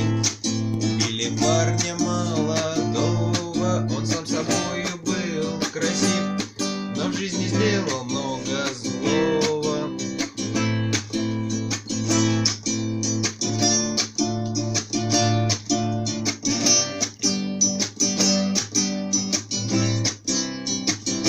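Acoustic guitar strummed in a steady rhythm, playing the instrumental ending of a sung ballad.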